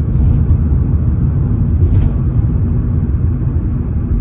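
A loud, steady low rumble with an uneven, buffeting level, and a faint tap about two seconds in.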